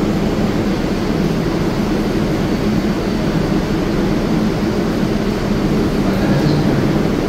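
Steady drone of an R188 subway train standing at the platform with its doors open, its equipment running at a constant hum.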